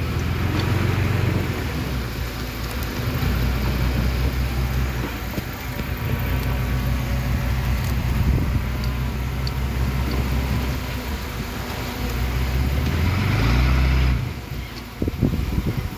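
Diesel engine of heavy earthmoving machinery running steadily under load, its pitch shifting and rising briefly before it drops off sharply near the end, followed by a few short knocks.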